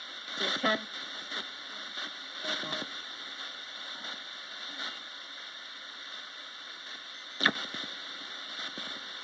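Roberts radio scanning as a spirit box: steady static hiss broken by a few brief snatches of broadcast sound, with a sharp crackle about seven and a half seconds in, the loudest moment.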